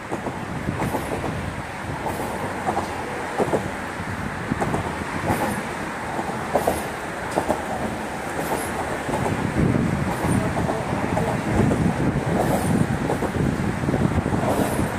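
Steady rumble of passing road traffic, with irregular knocks and clacks about once a second.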